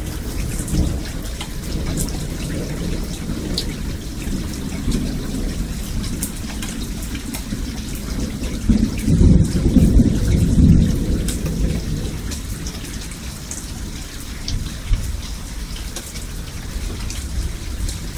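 Thunder rumbling continuously under steady rain, with a louder roll of thunder about halfway through. Scattered sharp raindrop ticks sit above the rumble.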